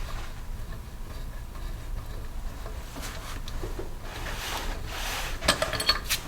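Metal engine parts and tools clinking and clicking as they are handled during an engine teardown, with a quick run of sharper clinks near the end, over a low steady hum.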